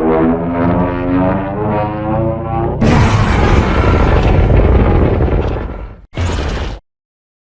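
Godzilla (2019 Monsterverse) sound effect: a deep, droning roar with a strong harmonic stack. About three seconds in, a sudden harsh rushing blast takes over and fades, followed by one short burst, then the sound cuts off to silence.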